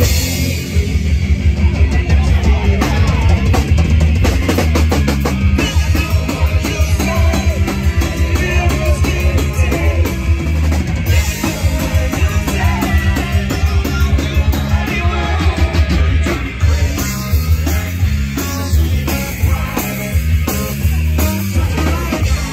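Live rock band playing at full volume: drum kit with a steady driving beat, electric guitar and saxophone.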